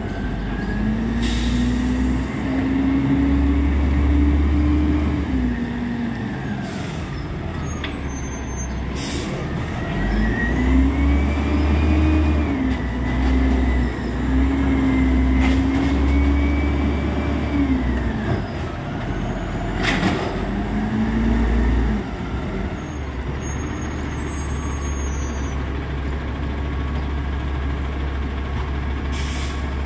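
Automated side-loader recycling truck working a street: its engine revs up and holds, then drops back, three times as the arm picks up and tips carts, with sharp hisses of the air brakes in between.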